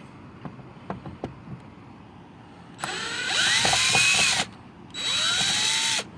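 Cordless drill/driver backing out door-handle screws: a few light clicks, then the motor runs twice, spinning up with a rising whine that levels off, once for about a second and a half and once for about a second.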